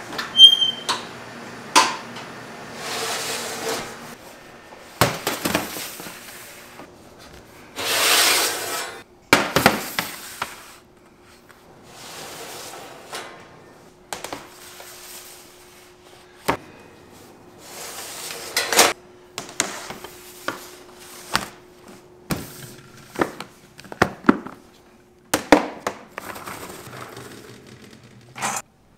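Bakery kitchen work: irregular knocks and clinks of utensils, pans and dishes, with a few brief noisy swishes.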